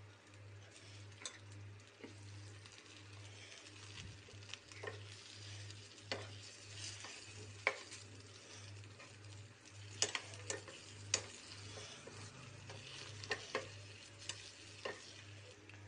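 Masala-stuffed boiled potatoes frying in hot oil in a pan: a steady sizzle with sharp clicks and pops scattered through it.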